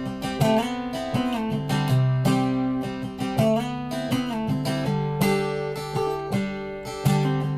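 Background music: an acoustic guitar strumming chords at a steady pace.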